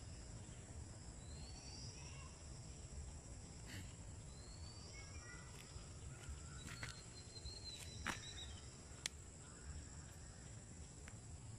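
Outdoor ambience: a steady high insect trill, a few short rising bird chirps in the first half, and a couple of sharp clicks, over a low rumble.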